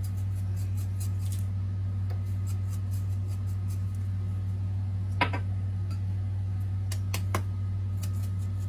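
Salt and pepper being put on: a scatter of faint, crisp clicks, with louder clicks about five and seven seconds in, over a steady low hum.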